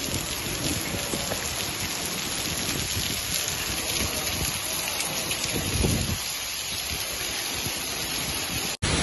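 Hailstones mixed with rain pelting paving stones: a dense, steady clatter of many small impacts. It breaks off abruptly near the end.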